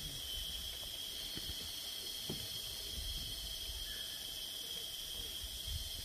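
Steady, high-pitched drone of insects in the forest, unbroken throughout, over a faint low rumble.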